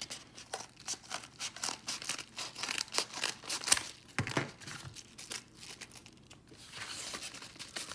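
Scissors cutting through a padded paper bubble mailer: a quick run of crisp snips with crinkling paper over the first four seconds, then softer rustling as the envelope is opened and handled.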